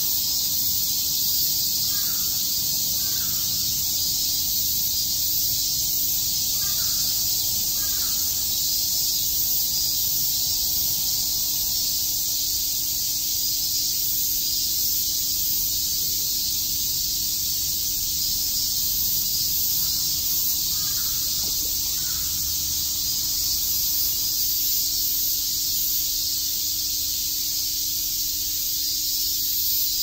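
A dense chorus of cicadas calling steadily: a loud, high, unbroken hiss with no let-up. A few faint short calls come through in pairs now and then.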